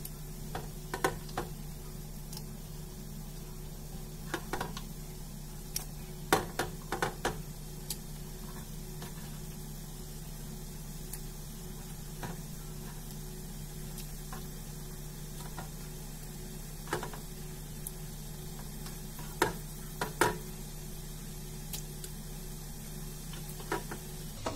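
Raw chicken gizzards and giblets being dropped by hand onto a metal pot of raw chicken pieces: a scattering of short, soft taps and clicks, some in quick clusters. A steady low hum runs underneath.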